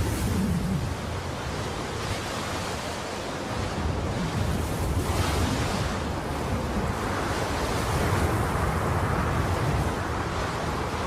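Horror-film ambience sound effect: a steady rushing noise like wind or surf over a low rumble, swelling about halfway through.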